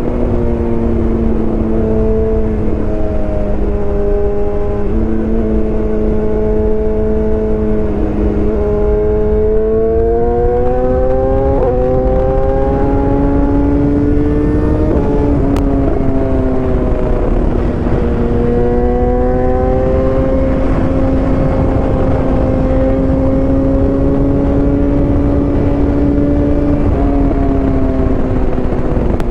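BMW S1000R's 999 cc inline-four engine running at fairly high revs under load. Its pitch climbs and drops several times as the throttle opens and closes, over a steady rushing noise.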